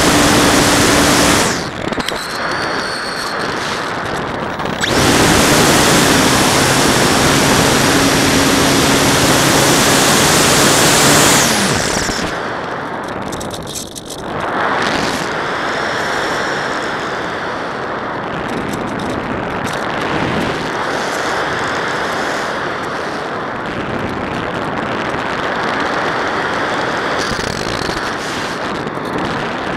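Onboard sound of a Multiplex Panda Sport RC plane in flight: its electric motor and propeller running, with heavy wind rush on the plane's own microphone. The sound gets quieter about two seconds in, louder again around five seconds, and quieter again around twelve seconds.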